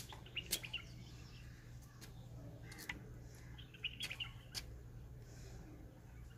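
Faint, scattered bird chirps over a low steady hum, with a few sharp clicks and taps as fingers press plastic tape onto a melamine tray.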